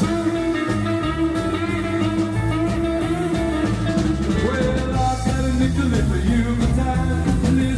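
Live rock and roll band playing an instrumental break, with guitar, bass and drums. A lead line holds one long note for about four seconds, then moves into bending notes over a steady beat.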